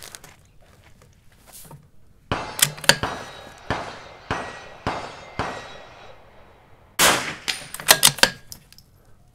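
.22LR rimfire rifle, a Vudoo V-22, firing a string of shots at steel targets, with hits ringing on the steel: a group of shots about two to six seconds in, then a quicker cluster near the end.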